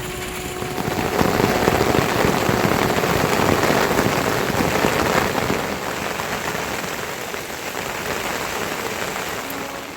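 Heavy rain falling in a steady hiss, growing heavier about a second in and easing off after about five seconds.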